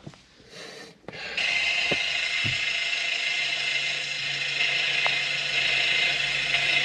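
Ford Transit van making a horrendous, steady mechanical racket that starts suddenly about a second and a half in, heard from inside the cab; the owner takes it for the clutch about to fail.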